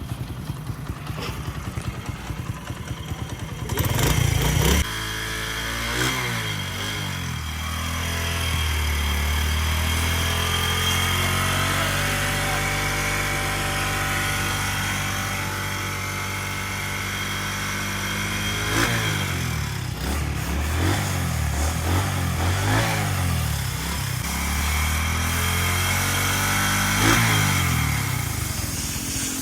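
Honda CD70's single-cylinder four-stroke engine idling with a fast, even beat, then running up and down in speed several times, its pitch climbing, holding and falling as the throttle is opened and closed.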